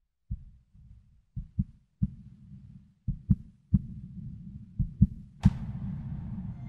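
A deep heartbeat sound effect in the intro of a song: low thumps in lub-dub pairs about every 1.7 seconds. About five and a half seconds in, a bright swell sets off sustained music.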